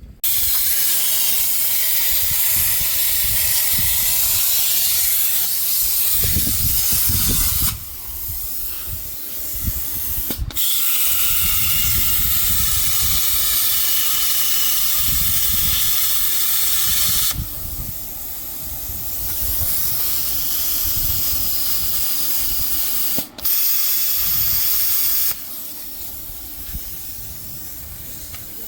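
Compressed air hissing loudly from an air tool in three blasts that switch on and off sharply, about eight, seven and two seconds long, with a low rumble in the pauses between them.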